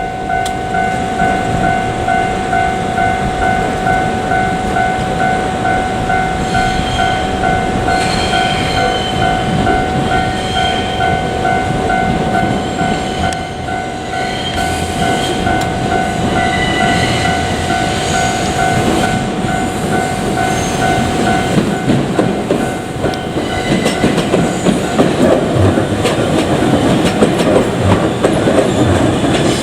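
Japanese level-crossing warning bell ringing in a steady, rapid pulse, which stops about two-thirds of the way through. Under it a JR Kyushu 787-series electric train runs past with a rumble and wheel clickety-clack, growing louder near the end.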